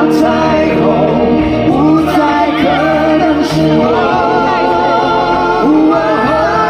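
Male lead vocalist singing a Mandopop rock ballad live with the band behind him, holding long notes with vibrato in the second half and stepping up to a higher note near the end.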